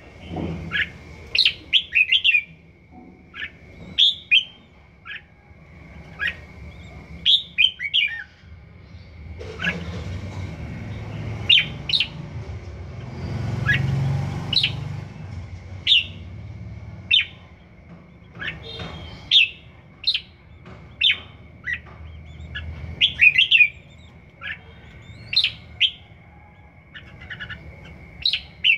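A caged red-whiskered bulbul sings short, bright, twisting phrases again and again, in quick clusters of notes. It is a young bird in its first season, still practising its song.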